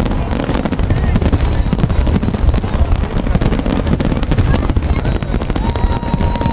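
Fireworks going off: rapid, continuous bangs and crackles over a deep rumble. A steady whistle starts near the end.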